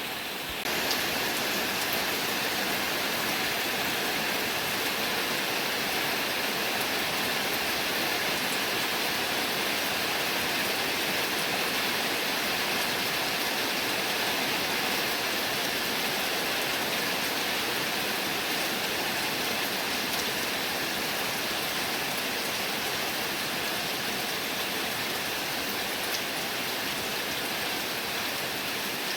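Heavy rain falling steadily, a dense even hiss that gets louder about a second in.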